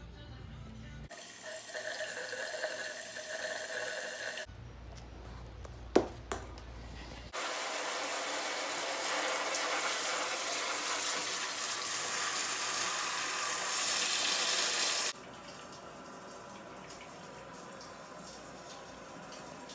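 Water running steadily for about eight seconds, then cutting off suddenly. Before it come quieter noisy stretches and one sharp click about six seconds in.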